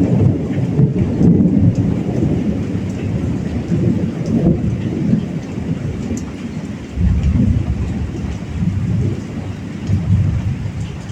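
Heavy rain falling steadily under thunder rumbling low and long; the rumble eases off midway, then a new roll of thunder breaks in about two-thirds of the way through.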